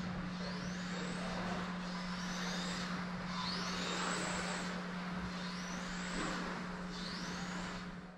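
Electric RC touring car's brushless motor whining up about five times, each a short rising whine as the car accelerates out of the corners, over the hiss of tyres on carpet.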